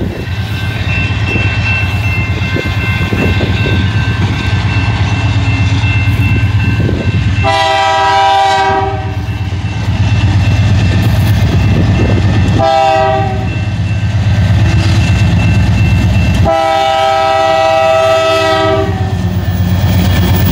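Canadian Pacific diesel locomotives approaching a level crossing: a steady low diesel rumble under the ringing of the crossing signal bell. The locomotive horn sounds for the crossing, a long blast about seven seconds in, a short one around twelve seconds, and another long one around sixteen seconds.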